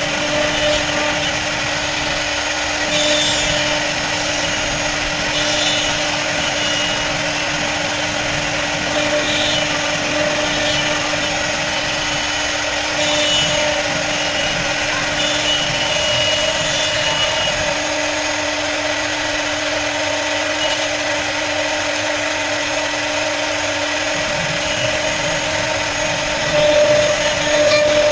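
CNC router spindle running at a steady whine while cutting a 2D jali pattern, with a high hissing cut noise that flares up briefly every few seconds.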